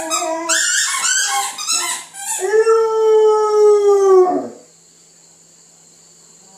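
Catahoula leopard dog howling for her breakfast: about two seconds of short, broken yips and whines, then one long, steady howl that drops away and stops about four and a half seconds in.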